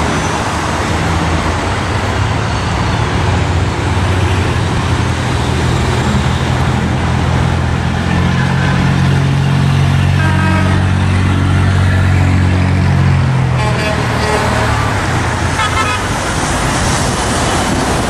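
Road traffic passing, with the steady low hum of a vehicle engine growing from about a third of the way in and cutting off about three quarters through. Several short car-horn toots sound over it, the first around the middle and more a few seconds later.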